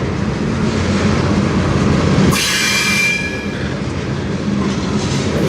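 Freight cars of a long, slow-moving manifest train rolling past with a steady rumble. About two seconds in, a wheel gives a brief high squeal lasting under a second.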